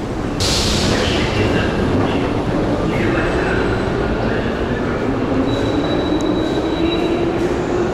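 Metro train running in the station: a loud rumble and rush that swells about half a second in, with a motor whine that rises slowly in pitch, as a train pulls away.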